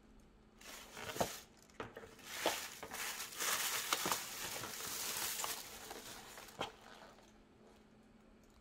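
Thin plastic carry bag rustling and crinkling as hands move in it, with a few sharp clicks, starting about a second in and dying away about seven seconds in.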